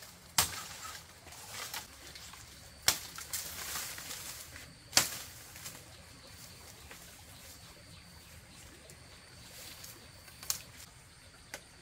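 Machete chopping a bamboo stem: three sharp chops, just after the start, at about three seconds and at about five seconds, with bamboo leaves rustling. Two lighter knocks come near the end.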